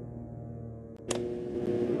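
Civil defense siren sounding the attack signal: a steady, slowly fading tone, then a sharp click about a second in and a new steady tone starting up.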